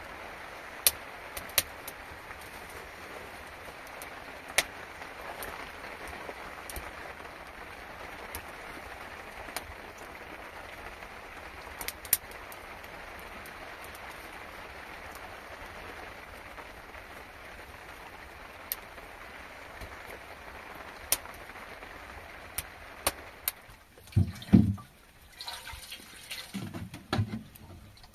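Steady rain with scattered sharp drops striking a hard surface. The rain sound cuts off about four-fifths of the way in, leaving a few low, irregular sounds and knocks.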